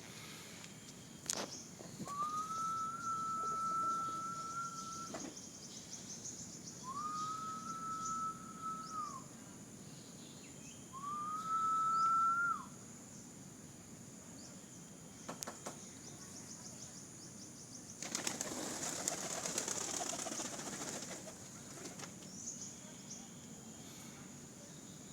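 Three long, steady whistled notes, then about eighteen seconds in a pigeon's wings flapping for about three seconds.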